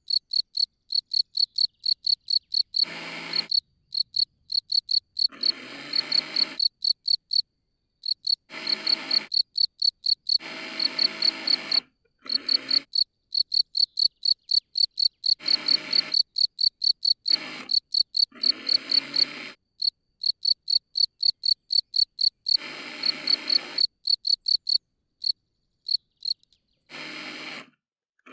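A cricket chirping in a steady, even rhythm of about four high chirps a second. This is its calling song, made by rubbing its forewings together to attract a mate. Every few seconds short bursts of noise break in, and the chirping stops near the end.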